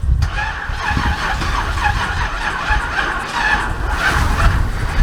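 A carbureted Buick Regal engine cranking on its starter for about five seconds without catching, then stopping. It cranks but does not fire because no gas is being pumped into the carburetor while cranking.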